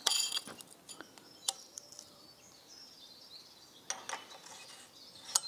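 Light metallic clinks of steel parts being slid onto the crankshaft nose of a Citroën U23 engine: a ringing clink at the start, then a few faint taps.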